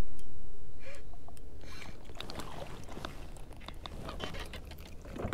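A spinning reel is cranked in, clicking, while a hooked white bass splashes at the surface and is swung out of the water. A low rumble fades over the first two seconds, and a run of sharp splashes and clicks comes near the end.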